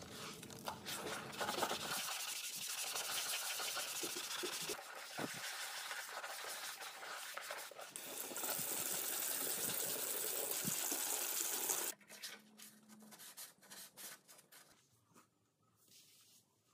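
Sponge scrubbing a foamy kitchen sink, a rough rubbing sound, followed by a few seconds of steady hiss as water rinses the sink. The hiss cuts off suddenly, leaving near silence.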